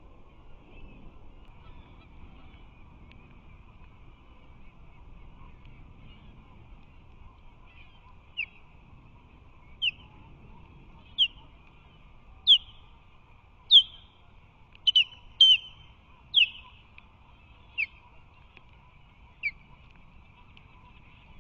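Osprey calling: a series of about ten short, high, down-slurred calls, roughly one every second and a half, starting about eight seconds in and loudest in the middle of the run.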